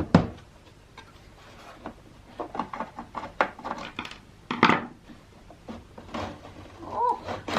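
Parts of a defibrillator being handled during disassembly: irregular knocks, clicks and rattles of its casing and components, loudest a knock at the start and a clatter about four and a half seconds in.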